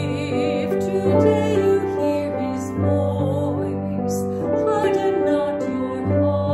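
A woman singing a psalm verse with vibrato over sustained keyboard chords, the chords changing every second or few.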